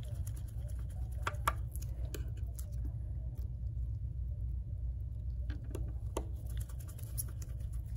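A few scattered small clicks and taps of a precision screwdriver and tiny screws against the iPhone 8 Plus's metal front-camera bracket as the screws go back in, over a steady low hum.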